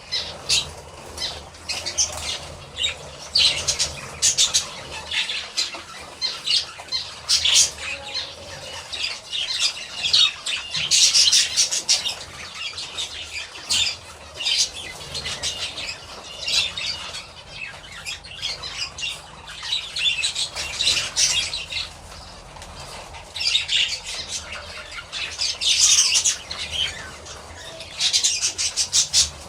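Budgerigars chattering and squawking in scratchy, high-pitched bursts that come every second or two.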